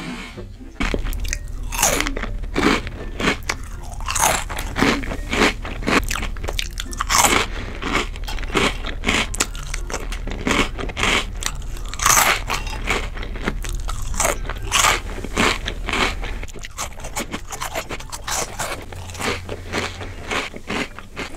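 A person biting and chewing crunchy Cheetos close to the microphone, with many quick, irregular crunches.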